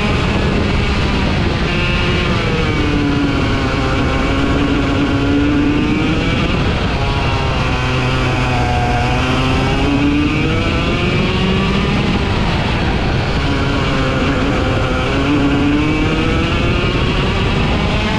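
Two-stroke racing kart engine heard onboard, its pitch dropping and climbing again several times as it comes off the throttle into corners and accelerates out of them. Wind and road rush runs underneath throughout.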